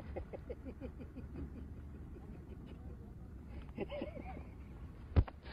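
A man's faint, stifled giggling, short repeated giggles in the first second and a half and another brief laugh about four seconds in, over a low steady rumble. A single sharp knock near the end.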